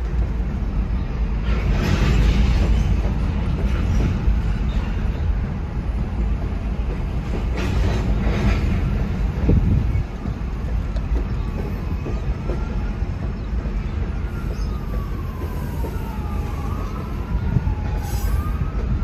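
Freight train of covered hoppers and tank cars rolling through a level crossing: a steady low rumble of wheels on rail. From about halfway through, a siren wails, rising and falling in pitch, over the rumble.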